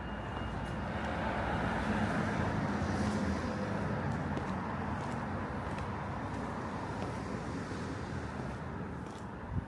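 Town street traffic noise: a vehicle passing, its engine and tyre noise swelling a couple of seconds in and then easing off.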